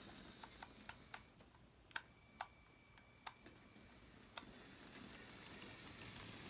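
Faint, irregular clicks of a motorised LEGO train's wheels crossing plastic track joints out of sight. About four and a half seconds in, a soft hiss of the train running grows as it comes back over the switches.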